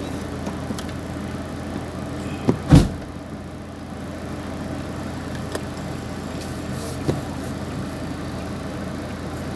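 A vehicle engine runs steadily with a low hum. One loud thump comes nearly three seconds in, with a couple of faint knocks later.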